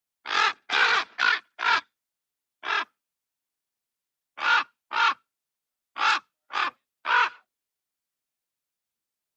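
Raven cawing close to the microphone: about ten short, harsh calls in bunches, a quick run of four, a single one, then a pair and a group of three, with silence between the bunches.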